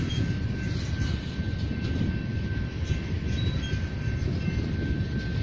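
Loaded tank cars of a freight oil train rolling past, a steady low rumble of wheels on the rails.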